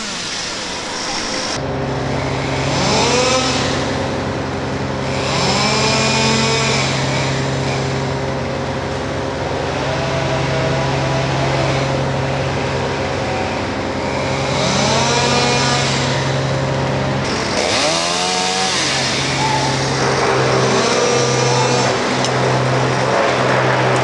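Chainsaw revving up and dropping back in short bursts, several times. Under it a steady engine hum starts about a second and a half in.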